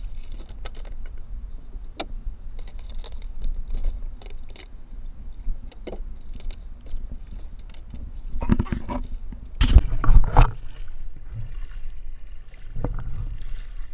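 Knocks and rattles of gear and the handheld camera being handled aboard a small outrigger boat, over a steady low rumble. A louder cluster of knocks comes about nine to ten seconds in.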